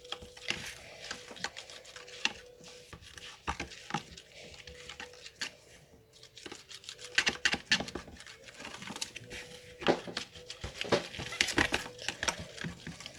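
A spoon stirring dye into slime glue in a small pot: a busy run of short scraping clicks, sparser for a few seconds in the middle and thicker toward the end.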